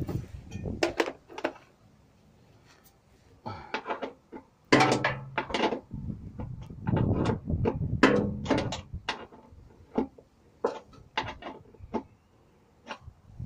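Irregular knocks, clunks and rustling from hands and a fleece sleeve working right against the microphone, with a busier run of knocks in the middle.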